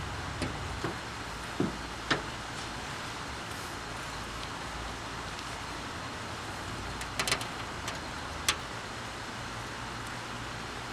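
A handful of short, sharp clicks and knocks from metal parts of a welding electrode holder being handled and taken apart, over a steady low hum.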